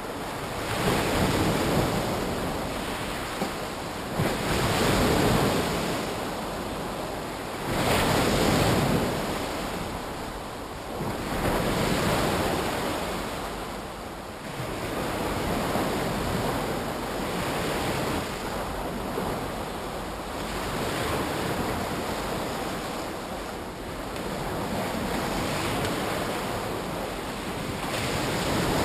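Surf breaking and washing up on a shore, surging louder every few seconds as each wave comes in, with wind buffeting the microphone.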